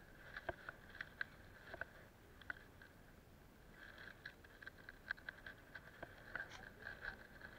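Faint, irregular clicks and taps from hands handling a fishing rod, spinning reel and line, with a small fish on the hook. The taps come a few times a second, more densely in the second half.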